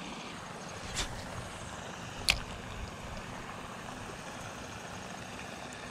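Steady hiss of rain falling, with two sharp clicks a little over a second apart, the second louder.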